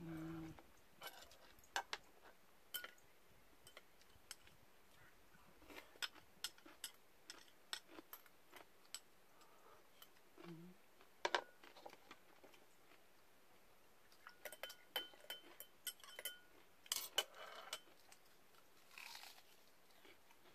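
Close-up eating sounds: scattered small clicks and crunches of food being handled and chewed, with a light tap of utensils on dishes. A brief closed-mouth hum right at the start.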